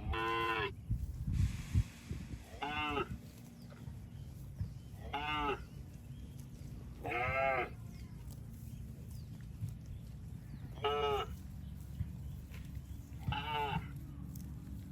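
Cattle mooing in six short, fairly high-pitched calls a few seconds apart, each call rising and then falling in pitch. A steady low rumble runs underneath.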